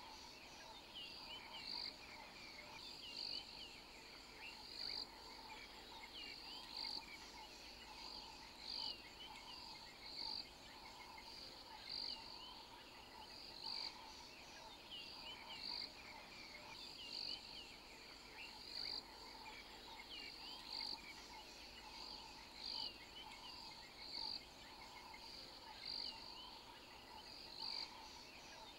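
Faint wild-animal ambience: a short, high call repeats about every two seconds over fainter chirping calls, like a frog or insect chorus.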